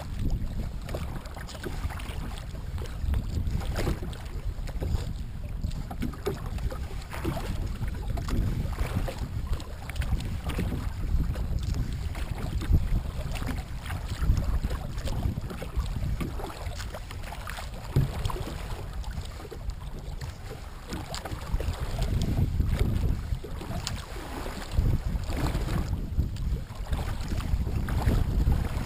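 Kayak paddled across choppy lake water: waves slap and splash irregularly against the hull and paddle blades dip in, under heavy wind noise on the microphone.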